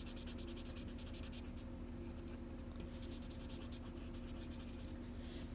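Felt-tip marker colouring in on paper with quick scribbling strokes, in two spells with a pause between them.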